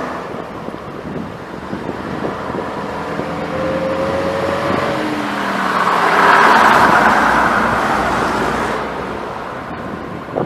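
Vintage London Transport RT double-decker buses driving past with their diesel engines running; one engine note rises as it pulls away a few seconds in, and another bus passes closest and loudest just after the middle.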